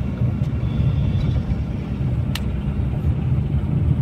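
Steady low rumble of a car heard from inside the cabin, the drone of engine and road noise of a moving car. A single short click about two and a half seconds in.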